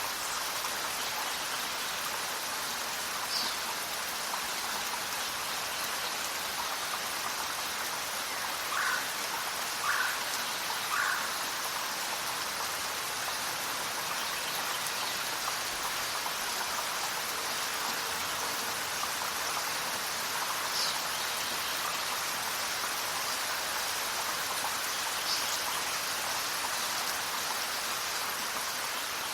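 Steady jungle rain falling, with a few short bird calls over it: three lower calls about a second apart around a third of the way in, and a handful of higher, quick calls scattered through.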